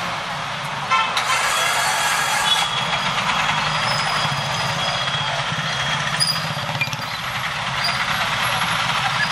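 Street traffic dominated by a nearby auto-rickshaw engine running with a pulsing rumble as it pulls away, with other auto-rickshaws and motorbikes passing. There is a short hiss about a second in.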